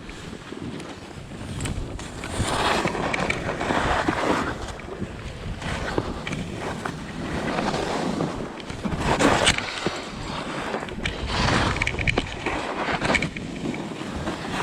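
Strong gusty wind buffeting the microphone, rising and falling in surges, with the strongest gust about nine seconds in.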